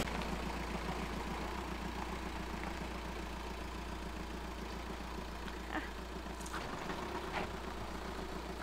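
Volkswagen T5 Transporter van's engine idling with a steady low hum, with a few faint ticks over it in the second half.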